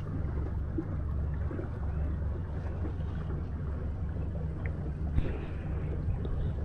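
Steady low rumble of wind and water noise on a small fishing boat, with no distinct engine note.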